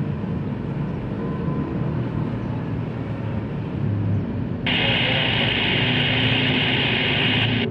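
Steady low rumble with a burst of airband radio hiss: an open channel with no voice that switches on abruptly about two-thirds of the way in and cuts off just before the end.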